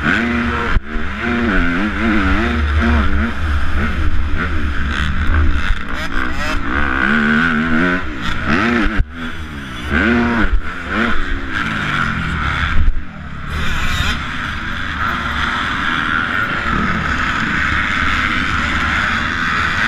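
Onboard sound of a 250-class motocross bike's engine under race throttle, its pitch rising and falling over and over as the rider revs through the track's turns and jumps, with a short drop-off partway through before the engine settles into a steadier run. Wind rumble buffets the helmet-mounted microphone.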